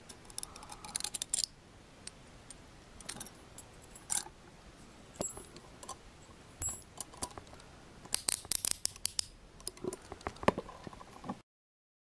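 Szco Scorpion handcuff worked with its key: scattered metal clicks and clinks, with the key ring jangling. There is a dense run of clicks about eight seconds in, and the sound cuts off abruptly near the end.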